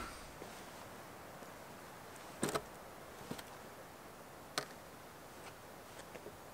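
Quiet background hiss with a few sharp, isolated clicks scattered through it, the loudest about two and a half seconds in and another near the middle.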